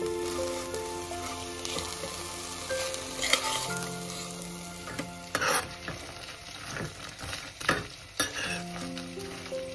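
Chopped moringa (drumstick) leaves sizzling in oil in a steel pan while a metal spoon stirs them, scraping and knocking against the pan now and then. Background music plays alongside.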